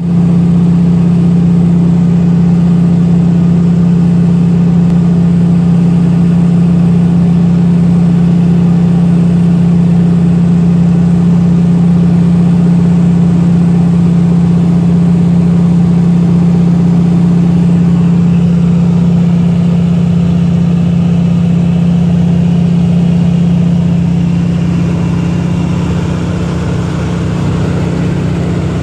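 De Havilland Beaver's nine-cylinder Pratt & Whitney R-985 radial engine and propeller in cruise flight, heard inside the cabin as a loud, steady drone with a strong low hum. It eases off slightly near the end.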